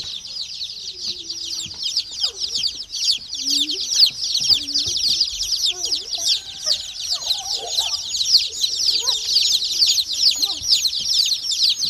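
A flock of baby chicks peeping nonstop, many short high chirps overlapping, with occasional lower clucking calls beneath them.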